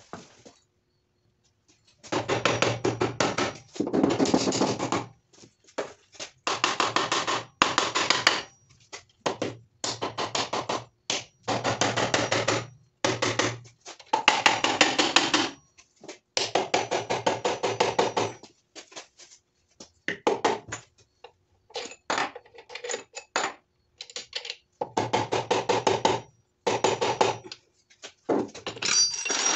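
Tool work on a Honda D16Y7 engine block's crank cradle as it is broken loose from the block: about fifteen short bursts of rapid rattling metal strikes, each a second or so long, separated by brief pauses.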